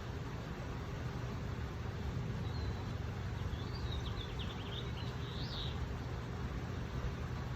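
Steady low outdoor rumble with a few faint, high bird chirps and a short trill a little past the middle.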